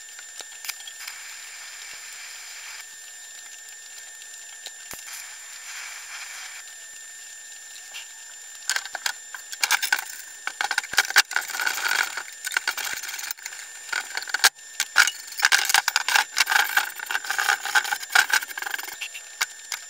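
TIG welding on a steel car subframe: a steady hiss at first, then from a little before halfway a loud, irregular crackling and popping of the arc that runs almost to the end. The welds it belongs to are ones the welder calls ugly and contaminated.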